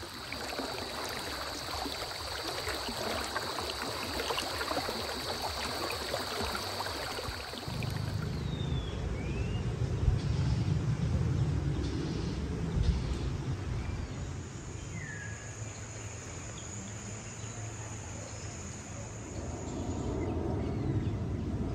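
Outdoor ambience: a steady, high-pitched insect drone for the first eight seconds and another higher drone later, with a few short bird chirps. A low rumble comes in about eight seconds in and grows louder near the end.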